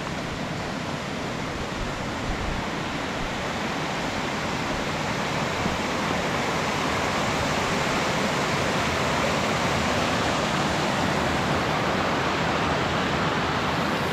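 Small mountain stream cascading over rocks: a steady rush of water that grows slowly louder.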